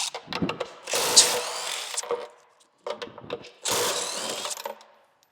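A handheld power tool spinning out the 16 mm skid plate bolts on a 2001 BMW 330Ci, in two runs of about a second each with a few clicks between.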